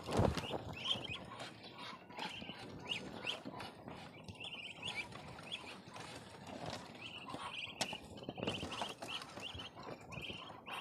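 Ducklings peeping over and over in short, quick high calls, with rustling and a few knocks as feed is scooped from a sack and poured into their cage.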